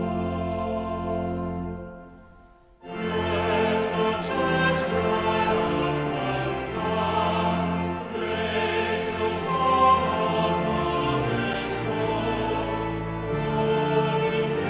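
Choir singing with instrumental accompaniment. The music fades out about two seconds in, and a new passage starts abruptly a moment later.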